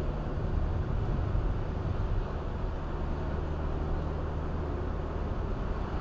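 Steady road noise inside a car driving in the rain on a wet road: a low engine and tyre drone with a hiss.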